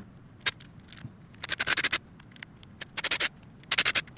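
Short bursts of scraping and clicking from hands working on the disassembled parts of a cordless impact driver, coming in several separate half-second spells, the busiest near the end.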